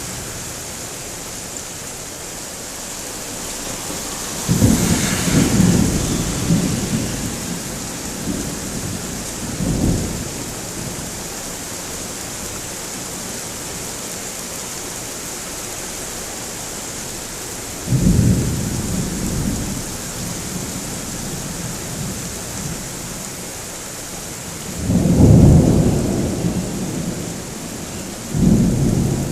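Thunderstorm: steady rain with several rolls of thunder. The first, about four seconds in, starts with a sharp crack, and the last three come in the second half.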